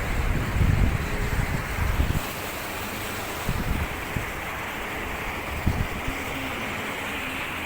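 Sea surf washing steadily onto a beach, with wind buffeting the microphone in low rumbling gusts for about the first two seconds before it settles.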